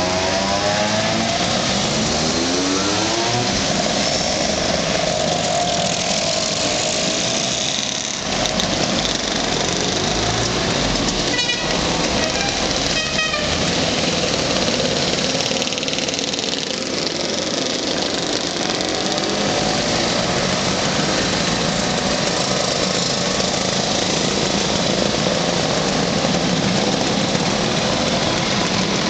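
A stream of Vespa and Lambretta scooters riding past one after another, their small engines running and revving, with a rising engine note near the start.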